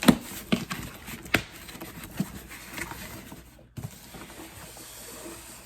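Packaging being handled and opened: scattered taps, clicks and rustles of a box being unpacked.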